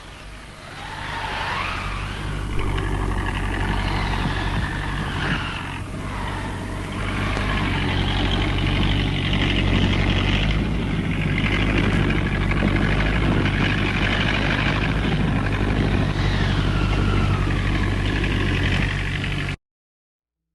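A vehicle engine running steadily with a low hum, its whine rising and falling as it revs. It cuts off suddenly near the end.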